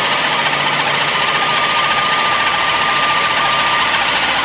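Chevy engine idling steadily, with a thin steady whine over it that fades out near the end.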